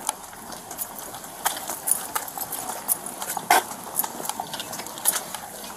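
Footsteps on hard ground while walking, with a run of sharp, irregular clicks and knocks; the loudest comes about three and a half seconds in.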